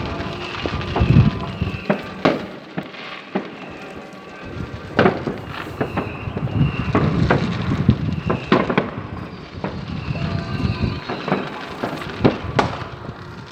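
New Year's Eve fireworks: sharp bangs going off every second or so, irregularly, over a steady crackling hiss.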